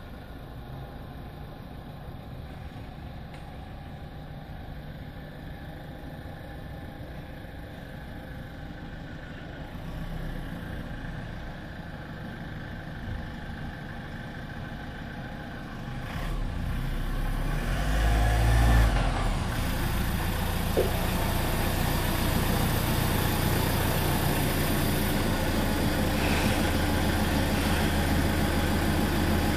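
Toyota RAV4 2.2 D-4D four-cylinder turbodiesel running at low speed as it drives up and pulls into a garage. The engine grows louder from about 16 s and is loudest around 18–19 s as it enters, then idles steadily and louder inside the garage.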